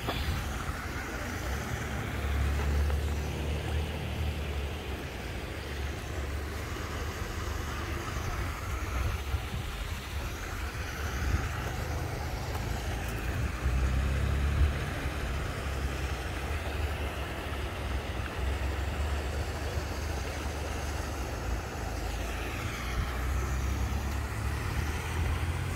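Wind buffeting a phone microphone, a low rumble that swells and fades, over a steady outdoor hiss.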